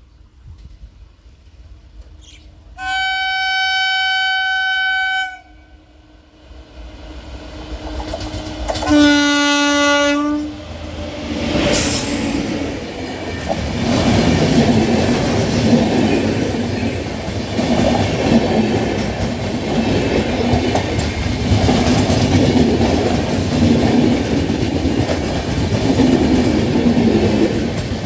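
Indian Railways electric locomotive sounding its horn twice as it approaches at speed: a long, high blast of about two and a half seconds, then a shorter, lower blast about six seconds later. The express then runs past close by, a steady heavy rumble of wheels on rail that swells and dips as each coach goes by.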